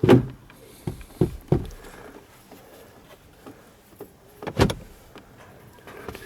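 Clicks and knocks of plastic parts behind a Hyundai i20's glovebox as the cabin air filter housing is closed up after a new filter is fitted: one loud click at the start, three smaller clicks over the next second and a half, and a heavier knock about four and a half seconds in.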